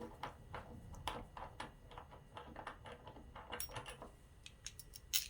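Light, irregular clicks and taps of small metal hardware, a bolt and nuts, being handled and fitted into a PVC pipe fitting. The clicks are quick and dense for about four seconds, then sparser, with one sharper click near the end.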